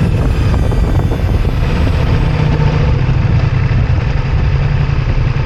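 Ducati Multistrada V4S motorcycle on the move: a steady, heavy low rumble of engine and wind noise.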